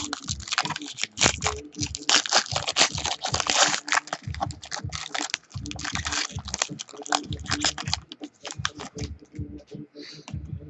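A trading-card pack wrapper being torn open and crinkled, with the cards being handled. A dense crackle runs for most of the time and thins out to scattered clicks near the end.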